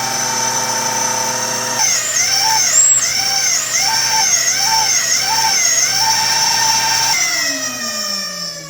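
Rubber chickens screaming as air is forced through them: a loud, continuous squealing tone that wavers up and down in a warble, then slides down in pitch and fades near the end as the airflow drops.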